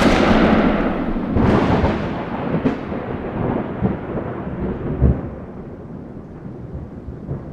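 Thunder rolling: a loud rumble that swells again twice in the first few seconds, then slowly fades away.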